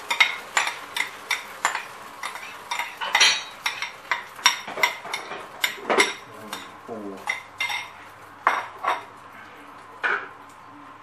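A utensil clinking and scraping against dishware while whipped egg batter is spooned into a frying pan: sharp clinks, about two or three a second, that stop about ten seconds in.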